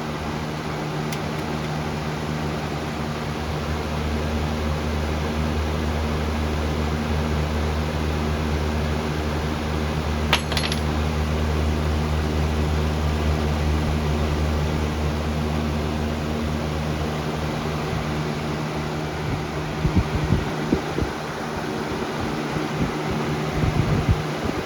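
Lasko B20200 20-inch box fan running on high speed: a steady rush of air over a low motor hum. One sharp click about halfway through and a few knocks near the end.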